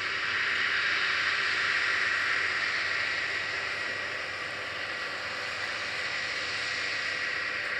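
Claas Lexion 760 TerraTrac combine harvester running while harvesting peas: a steady hiss of machinery with a constant high whine. It is loudest a second or two in, then eases slightly as the machine moves off.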